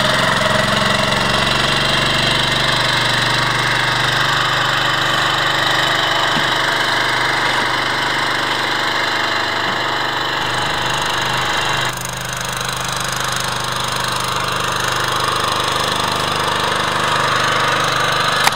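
Small homemade outboard motor, built from a lawn-mower engine, running steadily as it drives a skiff under way. About twelve seconds in, the sound steps a little quieter and changes tone.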